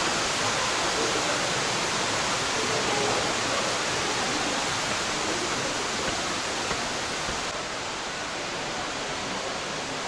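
A large waterfall rushing steadily, an even hiss with no separate events. From about seven and a half seconds in it turns slightly quieter and duller.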